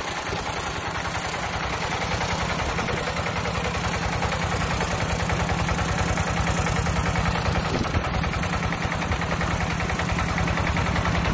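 Single-cylinder diesel engine of a homemade rice harvester built from a two-wheel hand tractor, running steadily under load with a fast, even firing beat as it works through a flooded paddy. It grows slightly louder as the machine comes closer.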